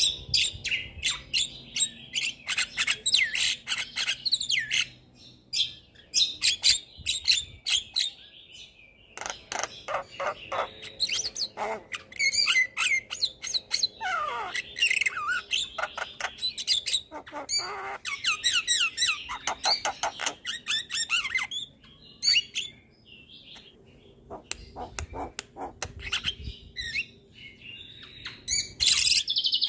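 Javan myna singing a long, varied song: rapid clicking rattles, chattering squawks and whistled notes, including a falling whistle about halfway through, delivered in bursts with short pauses between.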